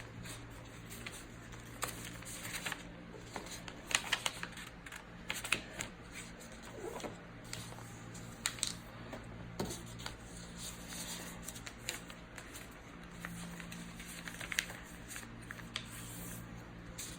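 A sheet of paper being folded and creased by hand into a paper airplane: scattered rustles and crinkles, with a steady low hum underneath.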